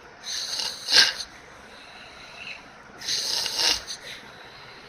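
Snoring from a sleeper: two snores about three seconds apart, each lasting about a second, the first with a sharp snort at its peak.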